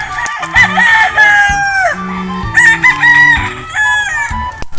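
Roosters crowing, three drawn-out crows one after another, the first and longest dropping in pitch at its end.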